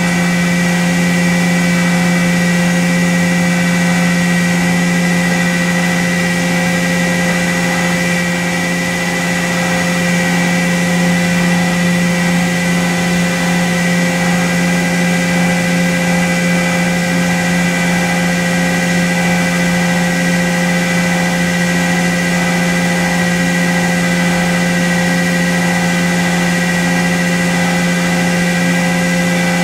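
CNC milling machine cutting the radial face of a putter head under coolant spray: a steady low hum with steady whining tones above it and a hiss of spraying coolant, unchanging throughout.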